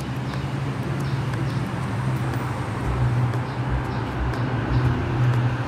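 A steady low hum like a vehicle engine running nearby, over street noise, growing a little louder with some low rumbling in the second half.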